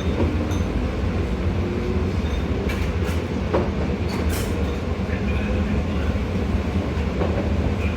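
A moving train running steadily with a continuous low rumble, and a few sharp clicks near the middle.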